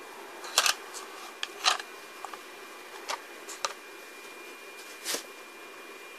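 About half a dozen light clicks and short rustles, spread irregularly, over a steady hiss with a faint high-pitched whine.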